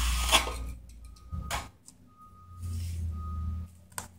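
A steel trowel scrapes across the wet concrete on top of a steel block mold, and a knock follows about a second and a half in, with another near the end. Behind it a reversing alarm beeps three times, a steady tone about a second apart.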